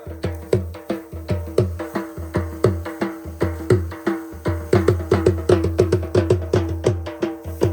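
Music with a quick, even percussion beat over a steady low drone.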